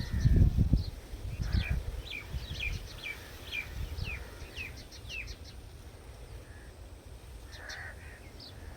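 A bird chirping: a run of short chirps, each falling in pitch, about two a second, fading out after about five seconds, with a few more near the end. A low rumble is heard in the first second.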